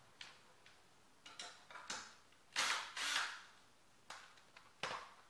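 Cordless drill spinning in two short bursts about two and a half seconds in, undoing a 10 mm bolt, with clicks and knocks of the tool being handled before and after.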